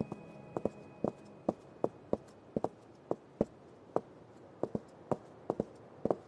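Footsteps of two people walking on stone paving, hard soles clicking in an uneven patter of about three steps a second.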